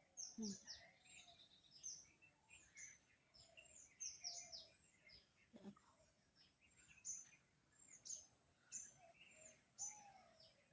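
Faint bird calls: short, high, downward chirps repeated steadily, a couple a second, with some lower notes among them.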